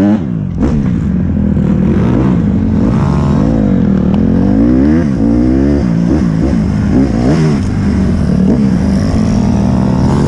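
Single-cylinder dirt bike engine being ridden hard, its pitch rising and falling again and again as the throttle is opened and closed through the gears.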